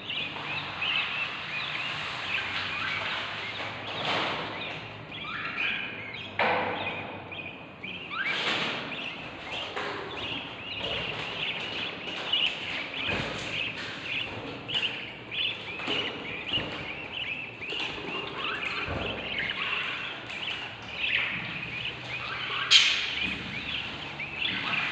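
Budgie nestlings about three weeks old chirping continuously, hungry begging calls from inside the nest box, with a few knocks early on the box and one louder call near the end.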